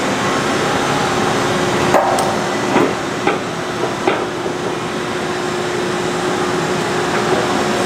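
Press brake running with a steady hum while it bends a 20-foot length of 3/8-inch steel plate. Four sharp knocks come between about two and four seconds in.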